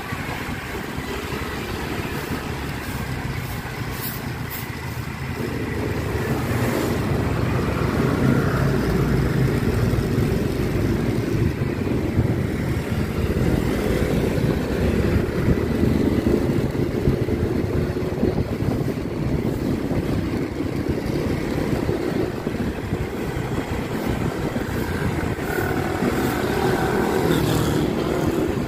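Riding noise from a motorcycle on the move: wind rushing over the microphone mixed with engine and tyre noise. It gets louder about six seconds in.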